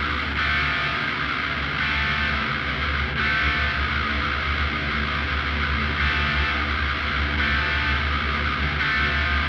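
Instrumental rock music intro: sustained guitar over a steady low drone, holding an even level.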